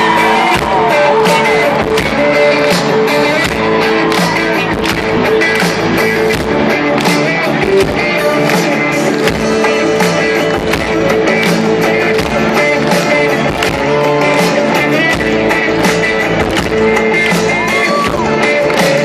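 Rock band playing live in a stadium, heard from within the audience: electric guitars and bass over a steady drum beat, the song's instrumental intro before the vocal comes in.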